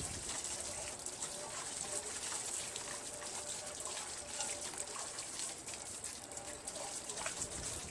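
A pressurized water spray rinsing soap suds and dirt off a garden tractor's body: a steady hiss with many small splashes and ticks of water striking the panels.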